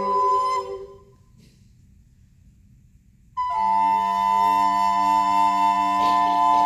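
A recorder quintet holds a chord that breaks off about half a second in, leaving a pause of about two seconds. The ensemble then enters together on a new sustained chord, one lower part shifting between notes under it before it settles.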